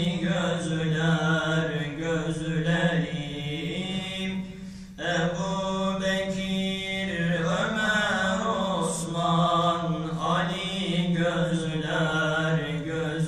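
Young men's voices singing a Turkish ilahi (Islamic devotional hymn) into a microphone, in long held notes that waver in pitch, with a short break for breath about five seconds in.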